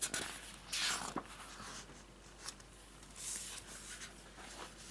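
Paper rustling in a few short bursts with small clicks as a book's pages are handled and turned.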